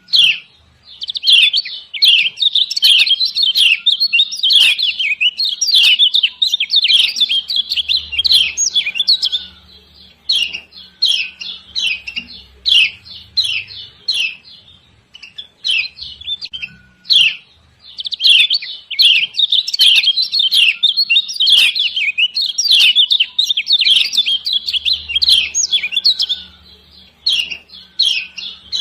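Female kecial kuning (Lombok white-eye) calling 'ciak ciak': rapid, high chirps in long dense runs, thinning to scattered calls for several seconds midway before picking up again.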